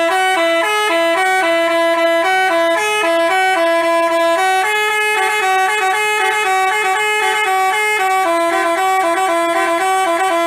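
Basuri multi-tone telolet bus horn playing a fast tune of short, separate notes that hop between pitches.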